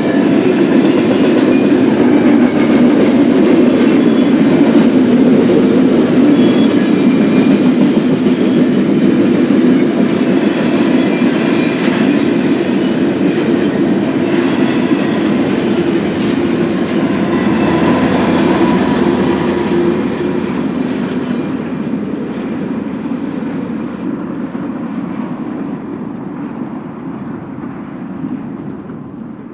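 Double-stack intermodal freight train's container well cars rolling past: a steady rumble of steel wheels on rail with clickety-clack. The sound fades over the last third as the end of the train passes and it moves away.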